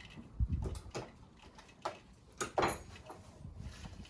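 A handful of sharp metal clinks and knocks from a wrench and loose bolts and parts being handled while unbolting a three-wheeler's rack, with a dull thump about half a second in.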